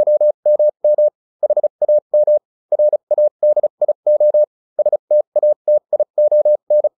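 Morse code sent as a single steady beep, keyed on and off in short dots and longer dashes at a brisk pace. It stops just before the end.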